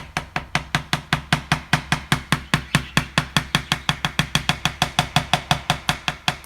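Cockatoo knocking in a fast, even drumming of about six or seven raps a second.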